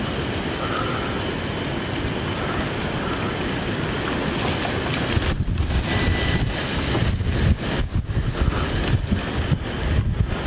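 Strong, gusty thunderstorm outflow wind driving rain against an open window, buffeting the microphone with heavy wind noise.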